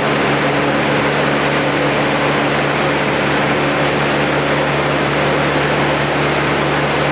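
A steady mechanical drone at a constant pitch, from a fan or motor held at fixed speed.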